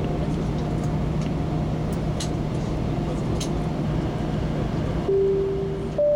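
Airbus A319 cabin noise while taxiing: a steady engine hum and rumble with a few light clicks. Near the end a two-tone passenger-address chime sounds, a lower tone followed by a higher one.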